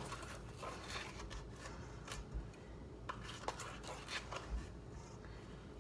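Half-teaspoon measuring spoon scooping baking soda and tapping against its container, a few soft scrapes and light clicks.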